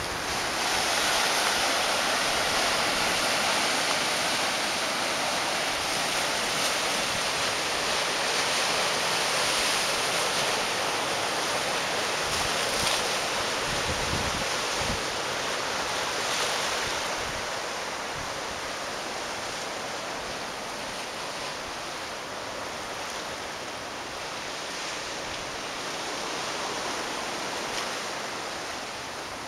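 Ocean surf washing over a rocky shore, a steady rush that eases off a little past halfway through, with a few low buffets of wind on the microphone.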